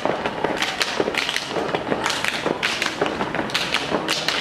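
A group of performers making sharp percussive hits at about four a second, a steady rhythm of claps, slaps or stamps kept up throughout.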